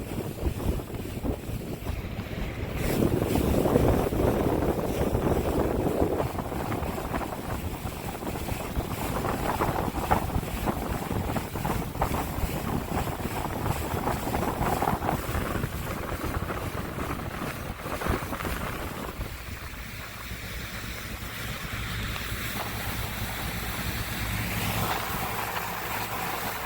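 A boat's motor running steadily under gusting wind noise on the microphone.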